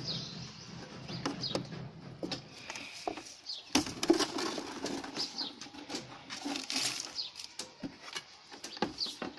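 Irregular clicks, knocks and rustles of hard plastic from white RO purifier tubing, push-fit fittings and the plastic cabinet and cover being handled.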